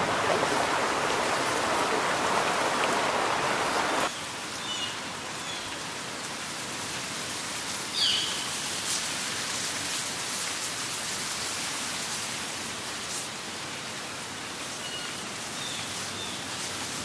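Steady rushing of water, louder for about the first four seconds, then quieter after an abrupt drop. A few birds chirp briefly now and then.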